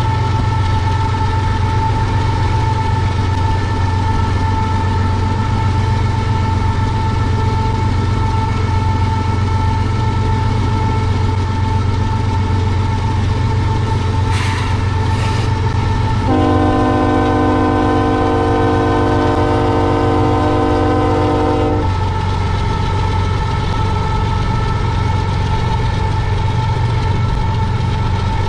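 Union Pacific diesel locomotive's air horn sounding one long blast of about five seconds, a little past the middle, over the steady low rumble of the moving train.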